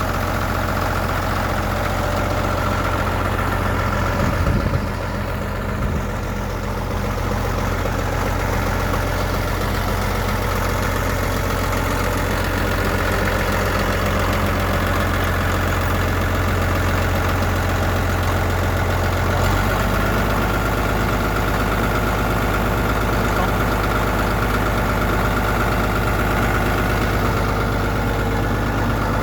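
Caterpillar D5 crawler's diesel engine running steadily at idle, with a couple of short knocks about four to six seconds in and a change in the engine note about two-thirds of the way through.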